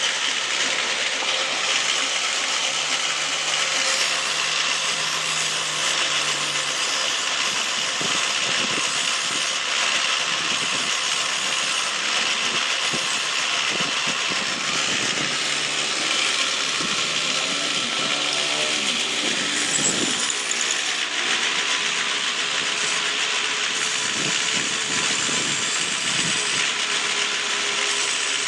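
A power tool running steadily, a continuous hissing mechanical noise with no pauses or separate strikes.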